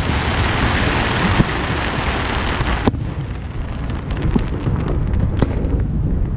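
Aerial fireworks heard from a distance. A dense rushing noise cuts off sharply about three seconds in, followed by low rumbling booms with several sharp cracks of bursting shells.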